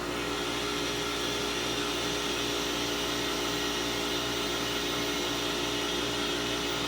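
Electric air compressor running steadily, a constant motor hum with a hiss over it.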